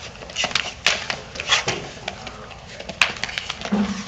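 Scattered clicks, knocks and scuffs of a pit bull tugging and shaking a cloth jiu-jitsu belt on a mat, with a brief low vocal sound near the end.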